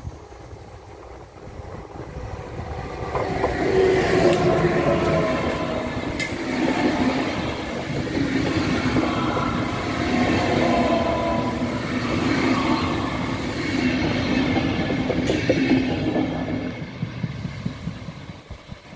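Flixtrain passenger train passing close by at speed, its wheels running over the rails. It grows louder as it approaches, carries a few steady tones over the rail noise while the coaches go by, and fades as it moves away near the end.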